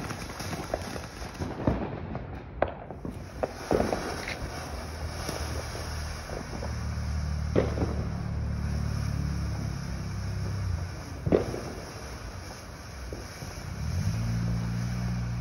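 Ground fountain fireworks hissing and crackling as they spray sparks, with several sharp cracks. A passing car's engine hum rises in the middle and again near the end.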